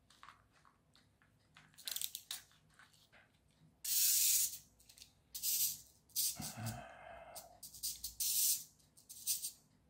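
Snap-together plastic pieces of a clockwork elephant kit rattling and clicking in the hands as its legs are adjusted, in short bursts with quiet gaps. A brief buzzing tone with a low thud comes about six and a half seconds in.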